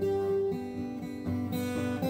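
Acoustic guitar strumming chords, with no singing.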